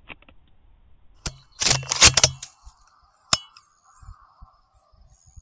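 Rifle shot at a coyote: a loud, sudden crack about a second and a half in that rings on for most of a second, followed by a single sharper click about three seconds in.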